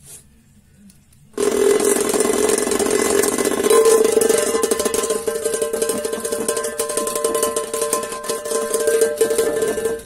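12 V vibration motor switched on inside a lidded metal tuna can, starting about a second and a half in and rattling the can with a very loud, steady metallic buzz.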